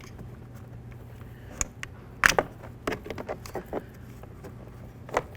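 Scattered plastic clicks and knocks from interior car door trim parts being handled. The loudest comes about two seconds in, followed by a quick run of smaller clicks, with one more near the end.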